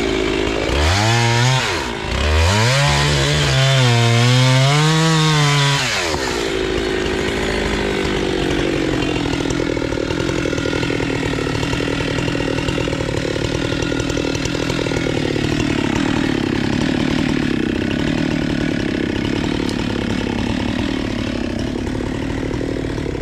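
Husqvarna 390XP two-stroke chainsaw with a 3-foot bar cutting through a willow trunk, its engine pitch rising and falling as it bogs under load and recovers. About six seconds in it drops to a lower, steadier engine note that carries on to the end.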